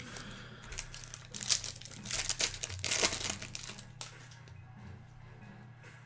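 Foil trading-card pack being torn open, its wrapper crinkling in loud bursts of rustling from about one and a half to four seconds in, then quieter handling as the cards come out.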